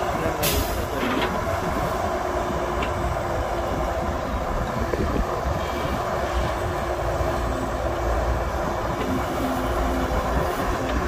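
Excavator's diesel engine running steadily under load while digging soil, with a brief sharp metallic scrape about half a second in.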